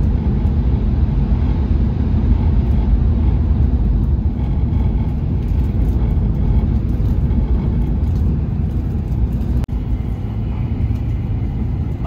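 Steady low running rumble inside the passenger cabin of a moving Hayabusa shinkansen bullet train, with a momentary dropout about ten seconds in.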